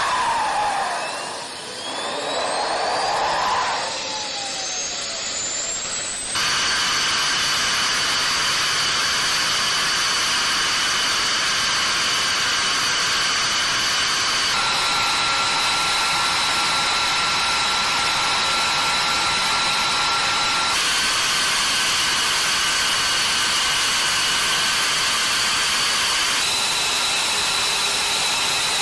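Lockheed Martin F-22's Pratt & Whitney F119 turbofan engines starting: whines rise in pitch as the engines spool up for the first few seconds, then settle into a steady loud rushing sound with high-pitched whine. The steady sound changes abruptly in tone several times.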